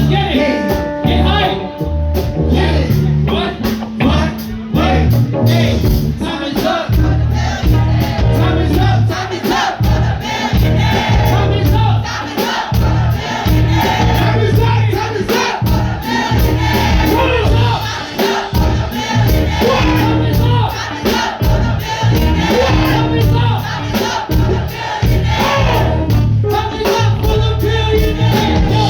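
Live hip-hop performance: a band's music with a heavy bass beat and several voices chanting and singing together over it.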